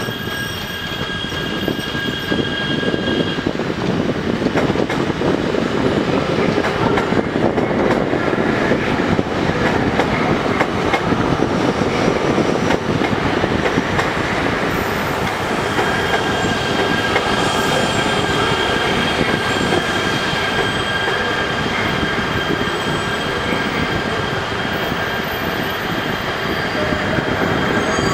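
E3 series Shinkansen train running slowly on the tracks as it pulls into the station, its wheels rumbling. Its wheels squeal with steady high tones in the first few seconds and again from about halfway on.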